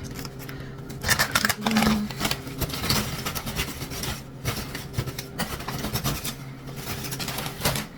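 Plastic bags rustling and crinkling as food packets are bagged and packed by hand, in irregular bursts of handling noise over a steady low hum.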